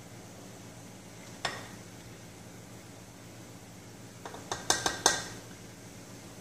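A measuring cup knocked several times against the rim of a glass bowl, sharp clinks in quick succession about four to five seconds in, with a single click earlier, over a steady low hum.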